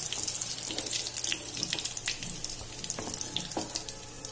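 Chicken kofta balls frying in hot oil in a kadai: a steady sizzle dotted with many small crackles.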